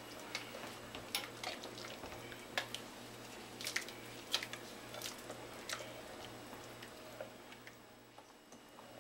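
Light, irregular clicks and taps of a utensil against an enamelled pot as cornmeal mixed with water is poured into boiling coconut milk and stirred fast so it won't lump. The clicks die away near the end, over a faint steady low hum.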